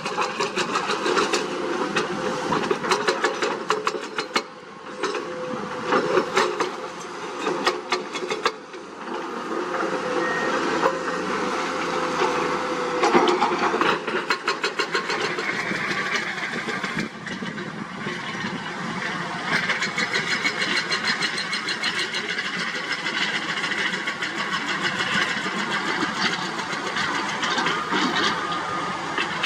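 Diesel engine of a heavy earthmoving machine running, with many rapid clicks and rattles over it and loudness rising and falling.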